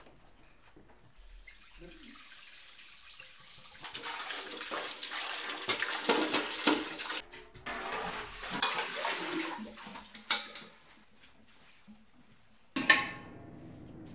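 Water running from a kitchen tap into a metal pot, growing louder, then turned off suddenly about seven seconds in. The pot clanks and knocks against the sink afterwards, and a sudden loud hit comes near the end.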